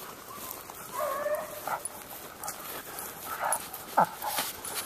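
Hunting dogs baying at a hog they are holding at bay: a drawn-out, wavering bay about a second in, then shorter barks, the sharpest near the end.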